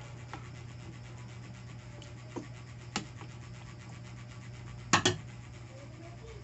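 A white spoon stirring a stew of bottle gourd cubes in a metal pot, rubbing and scraping against the pot, with a few light clicks and then two sharp knocks about five seconds in. A steady low hum runs underneath.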